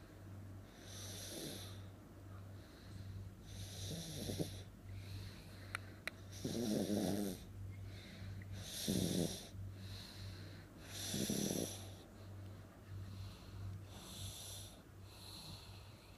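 A baby snoring as heavily as an adult, a rasping snore about every two and a half seconds.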